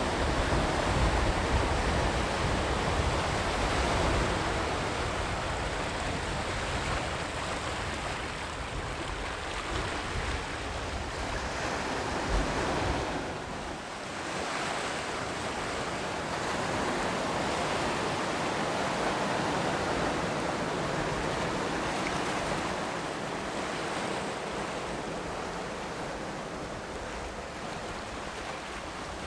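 Sea surf washing onto the shore, a continuous rush that swells and eases every few seconds.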